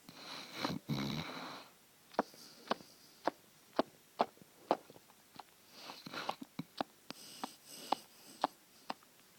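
Sleeping American bulldog sucking on her lolling tongue: a run of short, sharp wet clicks, about two a second. Between them come noisy snoring breaths, one at the start and more around six to eight seconds in.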